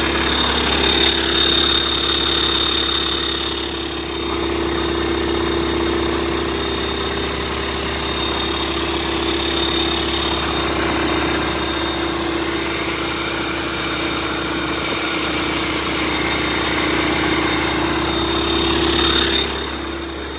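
YaMZ-650 inline-six turbodiesel running steadily on an engine test stand during a bench check after a rebuild. The level dips briefly about four seconds in, then rises and falls near the end.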